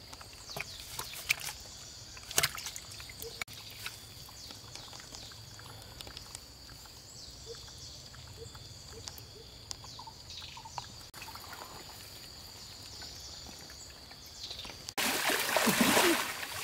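Scattered small splashes and flaps of fish shifting in a shallow muddy water hole, over a steady high-pitched whine. About fifteen seconds in it cuts to louder sloshing of water as people wade through a river.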